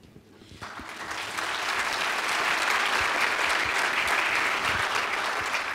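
Audience applauding: the clapping starts about half a second in, swells to a steady level within a second, and begins to fade near the end.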